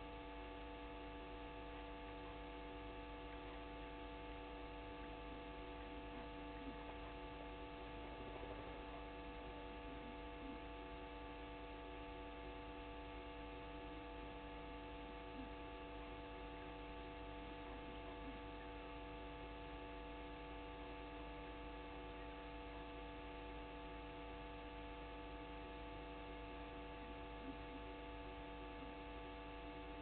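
Steady electrical hum, several unchanging tones at once, with a few faint ticks here and there.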